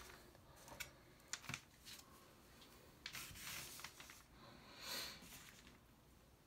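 Faint handling sounds: a marker pen scratching on paper, with a few light clicks early on and short scratchy passages about three and five seconds in.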